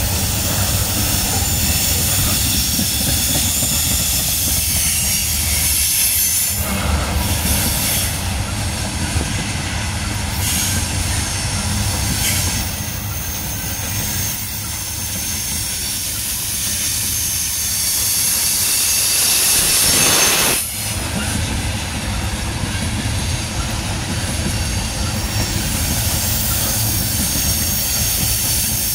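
Freight train hopper cars rolling past close by: steel wheels rumbling and clacking on the rail, with a thin high wheel squeal over the top. The noise swells and cuts off sharply about twenty seconds in.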